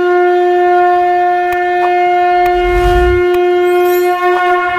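A conch shell (shankh) blown in one long, steady, unwavering note, with a few short clicks and a brief whoosh about three seconds in.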